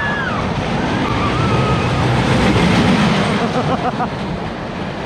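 Small roller coaster train rolling along its track, a steady loud rumble that swells about halfway through.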